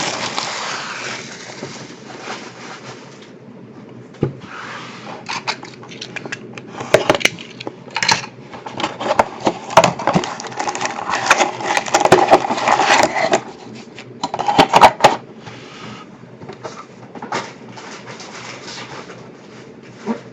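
Trading-card box being unwrapped and opened by hand: irregular crinkling, rustling and clicking of wrapping and cardboard, busiest in the middle stretch.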